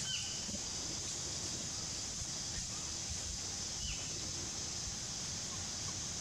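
Forest ambience: a steady high insect drone runs throughout, with two short high calls, one right at the start and another about four seconds later, over a low rumble.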